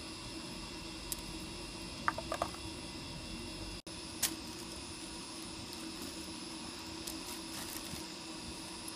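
Steady background hiss with a few faint, short clicks and taps.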